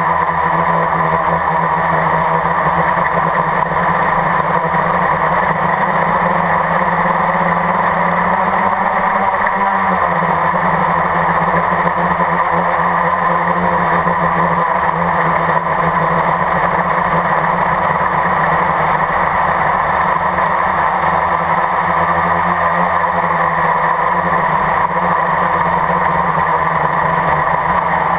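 Blade 350 QX quadcopter's brushless motors and propellers buzzing steadily, heard close up from the onboard camera. The pitch drops slightly about ten seconds in.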